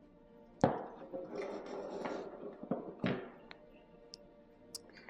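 Small gear items being handled and set down on a hard surface: a sharp knock about half a second in, a second of rustling, another knock around three seconds, then a few light clicks, over quiet background music.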